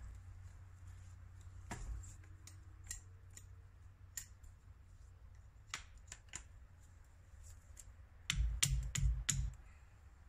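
Large bushcraft knife cutting and notching a wooden branch: scattered sharp clicks of the blade on the wood, then a quick run of about five heavier knocks a little after eight seconds in.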